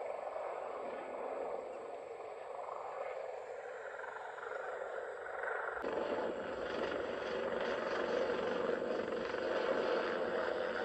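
A steady rushing noise, then, after a sudden cut about six seconds in, a helicopter passing low overhead with its rotor and engine running loud.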